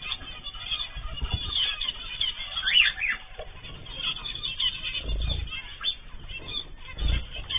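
Cage birds, a mix of cockatiels, zebra finches and canaries, chirping and calling continuously with the odd squawk. Two short low thumps come a little past halfway and again near the end.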